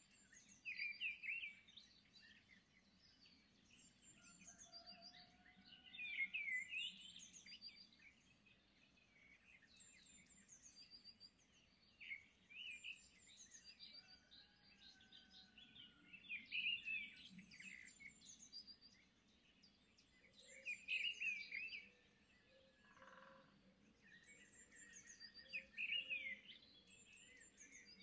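Small birds chirping and twittering in short bursts that come back every four to five seconds, with a few thin whistled notes in between.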